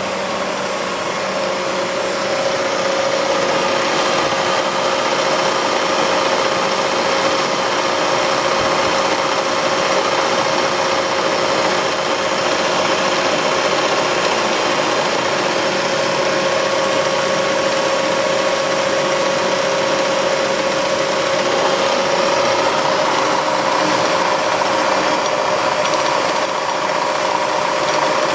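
SUMMIT radial drill's spindle motor and gear head running steadily, a mechanical hum with a clear steady tone.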